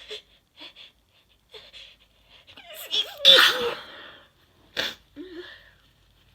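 A woman sneezing: a few short quiet sniffing breaths, then a rising intake that breaks into one loud sneeze a little past halfway, followed by a sharp shorter burst of breath about a second and a half later.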